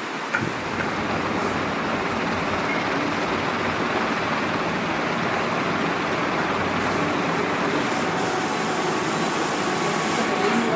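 Steady noise of running machinery: an even whir with a faint constant hum underneath, holding level throughout.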